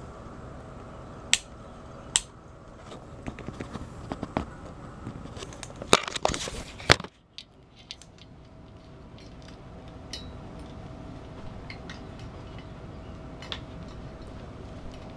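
Handling noise from a hand-held camera: fabric rubbing against the microphone with scattered clicks and knocks, the loudest two about six and seven seconds in. After that, a faint steady hum.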